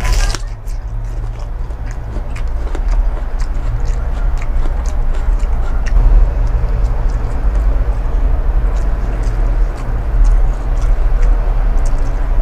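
Close-up chewing and mouth noises of someone eating a meal of fish, rice and raw bitter melon, with many small scattered clicks and a sharp crunch right at the start, over a steady low rumble.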